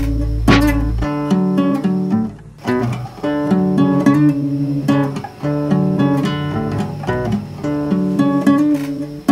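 Background music: an acoustic guitar playing picked and strummed notes.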